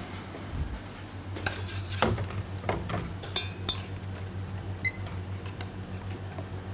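Utensils knocking and clinking against a stainless steel saucepan in a cluster of sharp strikes, one ringing briefly, over a steady low kitchen hum. A short faint beep follows a little later.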